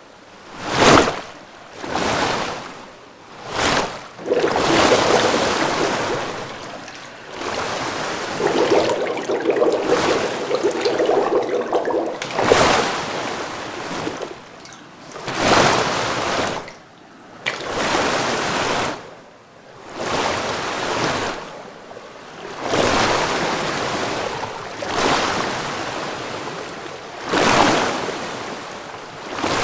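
Water sloshing and surging in repeated waves, each swell rising and falling over a second or two, with a steady tone for a few seconds in the middle.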